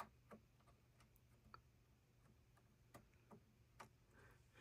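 Near silence with a few faint, irregular light clicks.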